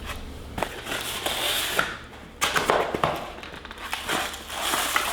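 Packaging of a boxed cutlery set crinkling and rustling in several bursts as it is handled and opened.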